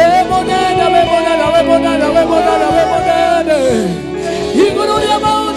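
Worship music: a voice sings long held notes that slide up and down over steady sustained chords with a light beat.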